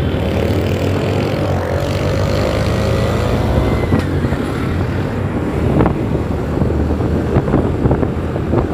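Motorcycle engine running while riding in traffic, heard from on board, its pitch rising slowly over the first few seconds.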